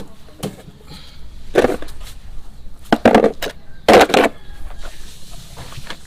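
Dry fallen leaves crunching and rustling as a garden scoop scrapes and tips them onto a pile, in about four loud scrapes in the middle.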